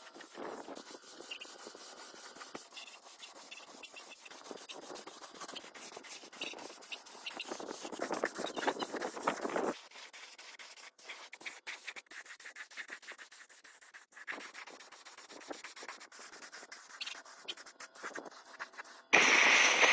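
Irregular hand rubbing and scraping on a surface, like sanding, with small clicks, louder for about two seconds near the middle. Just before the end, a much louder sound cuts in suddenly.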